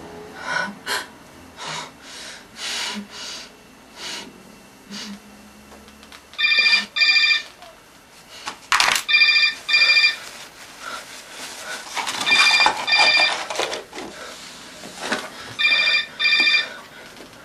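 Mobile phone ringing: four double rings about three seconds apart. Light rustling and small clicks of hands handling paper and small objects come before the first ring.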